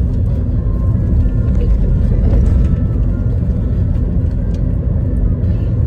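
Steady low rumble of road noise inside a moving car, with faint voices underneath.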